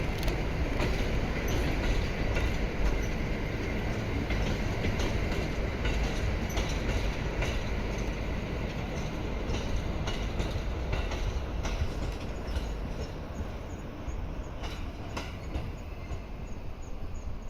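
JR East 701-series electric train rolling along the track: steady running noise with scattered clicks of the wheels over rail joints.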